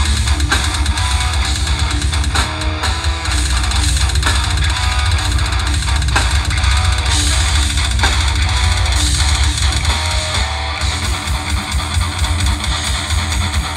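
Death metal band playing live: distorted electric guitars, bass guitar and drums, loud and dense through a festival PA. About ten seconds in, the low end breaks into a fast pulse.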